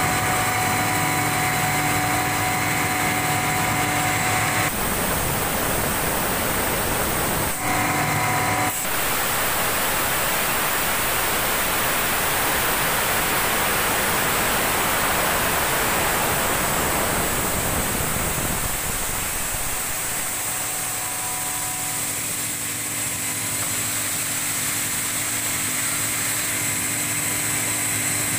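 CKE 18-inch, 185-watt exhaust fan running: a steady motor hum with a rushing of air. The sound switches abruptly a few times between the hum and a loud, broad airy hiss, and the hiss dominates through the middle.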